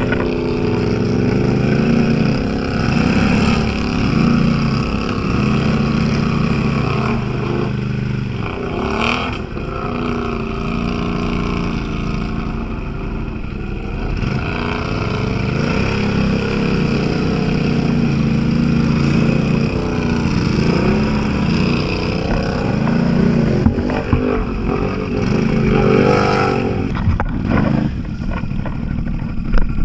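Off-road vehicle engine running and revving, its pitch rising and falling repeatedly as the throttle is worked.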